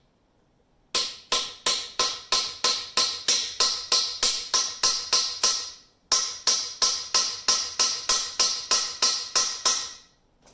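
Hammer tapping a bolt extractor (easy out) into a stuck rear oil passage plug in a small-block Chevy engine block: sharp metallic ringing strikes about three a second, in two runs with a brief pause about six seconds in.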